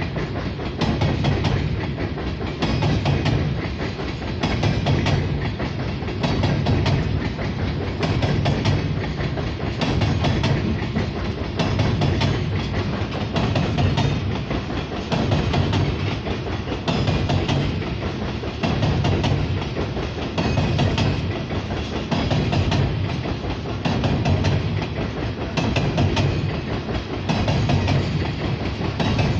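Loaded coal hopper cars of a long freight train rolling over a bridge: a steady low rumble with wheels clattering over rail joints. The clatter swells in a regular rhythm about every two seconds.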